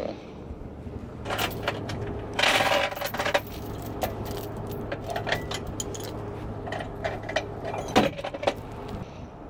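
Tow chains clinking and rattling as they are handled in a chain basket inside a tow truck's tool compartment, with a dense rattle of chain about two to three and a half seconds in and scattered clinks after, over a steady low hum.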